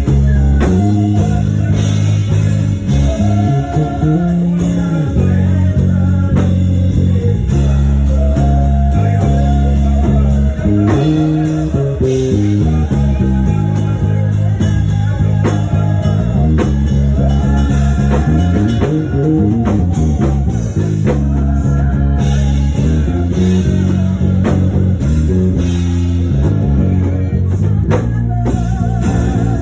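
Praise band music with a prominent bass guitar playing changing low notes under electric guitar.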